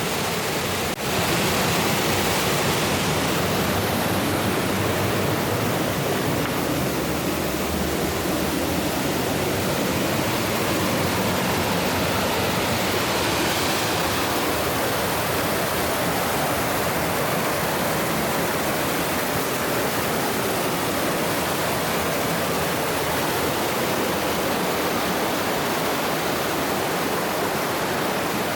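Mountain stream rushing over rocks in a gorge: a loud, steady wash of running water, with a brief dip about a second in.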